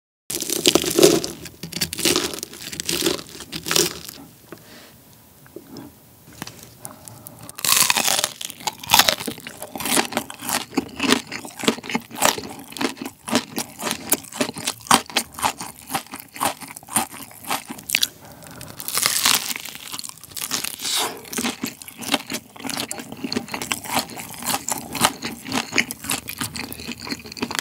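Close-miked crunching and chewing of a crispy hash brown waffle: rapid crisp crunches throughout, with louder bursts about a second in, around eight seconds and around nineteen seconds.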